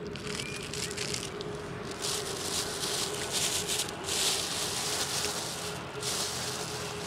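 Gravel-bike tyres rolling over loose gravel, a rough crunching hiss that swells and eases in stretches of a second or two, over a steady humming tone.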